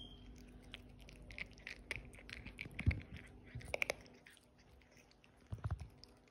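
Domestic cat crunching dry kibble, a run of irregular crisp crunches, the loudest about three and four seconds in. A few dull bumps come near the end.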